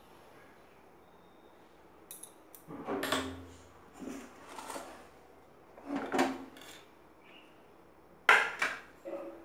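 Metal kitchen utensils clattering: a series of short clanks and knocks, starting about two seconds in, with the loudest near the end.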